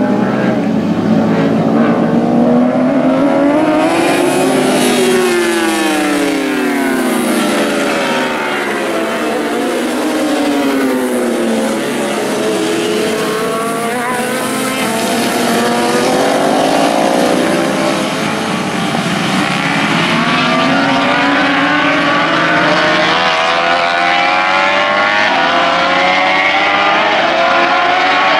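Several 1000cc superbikes racing past at high revs. Their engine notes climb in steps through the gears and sweep up and down as they pass, several bikes overlapping at once.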